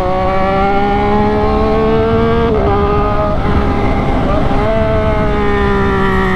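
Triumph Daytona 675R's three-cylinder engine pulling at a slowly rising pitch, changing gear about two and a half seconds in, then running on at a steady, slowly falling pitch, over the rush of wind.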